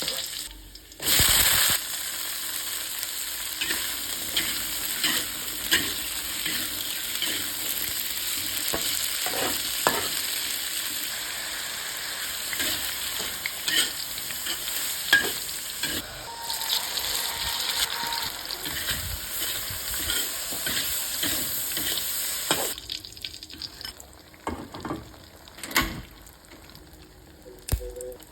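Food sizzling in hot oil as it is stir-fried, with scattered clicks of the stirring utensil. A loud burst comes about a second in, and the sizzling dies down about 23 seconds in, leaving a few clicks.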